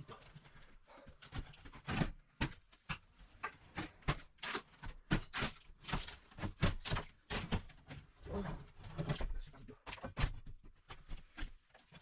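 Irregular knocks, taps and scrapes of hand work with tools and building materials, several a second.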